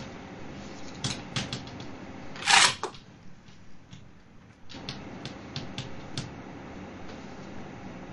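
Chalk writing on a blackboard: irregular sharp taps and clicks, with one louder, longer scrape about two and a half seconds in.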